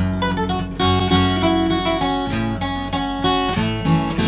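Steel-string acoustic guitar, capoed, playing a picked instrumental passage: melody notes and chords over a bass line.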